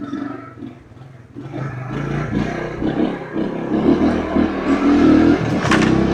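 Engine of a 50cc Shineray Jet on its original exhaust: it falls back for about a second, then picks up and revs, getting louder as it pulls.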